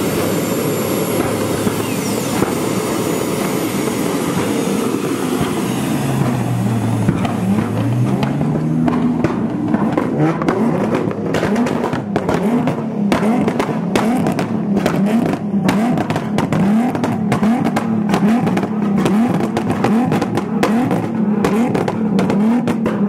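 A turbine jet bike's engine whining and rushing for the first few seconds. Then a car engine takes over, revving hard over and over in quick rises and falls of pitch, more than a dozen times at about one a second.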